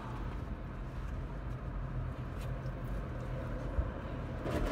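A steady low mechanical rumble, with a brief rattle near the end.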